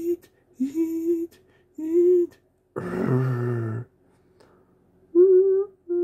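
A person imitating cartoon animal sounds with the voice: three short hummed squeaks at an even pitch, then a longer, deeper sound about three seconds in, and two more short calls near the end, the last sliding down in pitch.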